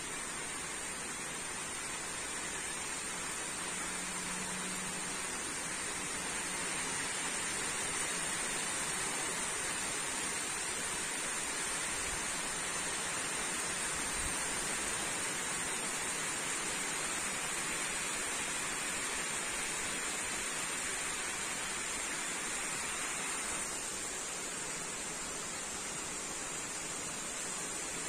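Steady summer rain falling as an even hiss, easing a little about three-quarters of the way through.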